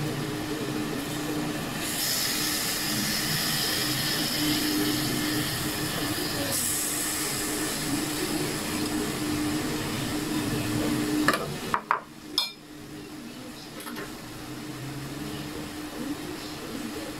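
Marinated pork pieces sizzling in an aluminium pot on a gas stove, a steady frying hiss that is louder for a few seconds early on. About two-thirds of the way through come a few sharp clinks of a metal utensil, and after them the sizzle is quieter.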